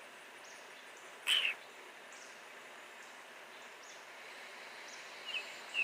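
Quiet outdoor background with birds calling: one short, sharp call about a second in, faint high notes, and a few quick chirps near the end.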